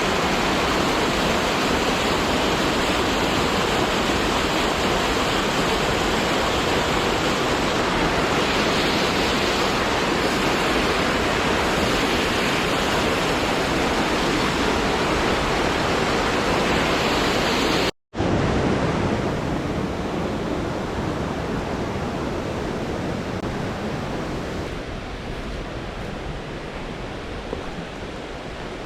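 Waterfall rushing steadily as an even hiss of water with no distinct splashes. It cuts out for an instant about two-thirds of the way through, then resumes a little quieter and slowly fades.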